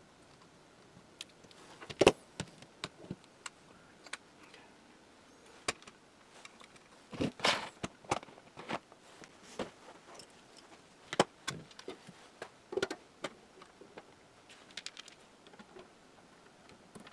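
Scattered clicks, taps and knocks of small metal parts and tools being handled on a workbench while a crystal radio panel is soldered and fitted into its cabinet, with a sharp knock about two seconds in and a brief scraping rustle around seven seconds in.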